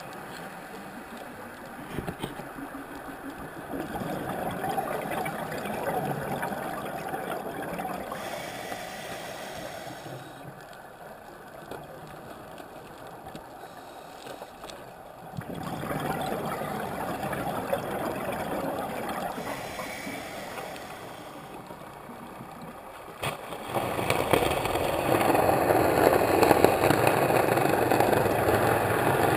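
Scuba divers breathing through their regulators underwater: long gurgling rushes of exhaled bubbles, three times, with quieter stretches between them.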